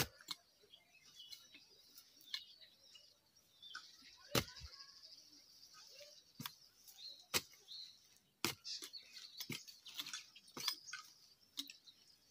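A hand hoe chopping into soil in a series of sharp, irregular strikes, roughly one a second, the hardest about four seconds in. Birds chirp throughout.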